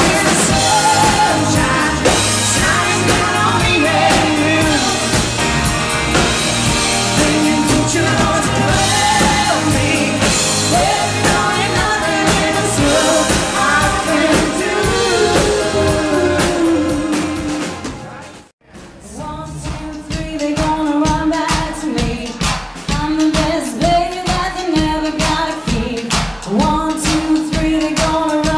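Live rock band playing, with electric guitars, bass and drum kit under a sung lead vocal. About two-thirds of the way through, the music cuts out abruptly for a moment, then comes back with a sparser, more clearly pulsing beat.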